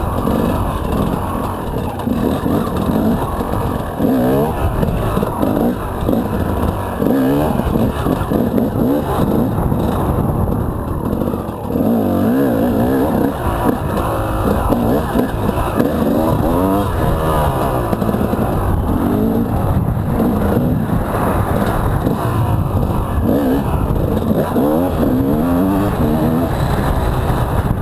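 Enduro motorcycle engine revving up and down over and over as the bike is ridden over a dirt track, heard close from the bike itself.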